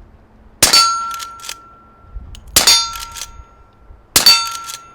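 Three suppressed rifle shots from a lever-action Rossi 92, each hit answered at once by a steel target ringing in a clear, lingering tone. The shots come about one and a half to two seconds apart.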